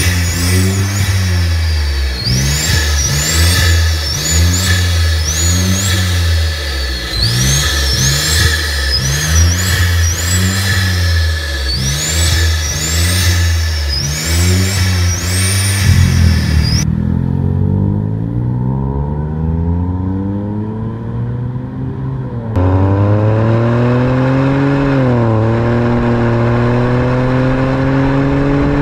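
Geely Coolray's turbocharged 1.5-litre three-cylinder engine revved in quick blips about once a second at the open engine bay, a high whistle climbing with each rev and dropping off sharply, heard beside its K&N cone intake filter. In the second half the car accelerates on the road, the engine note climbing steadily with a dip at one gear change.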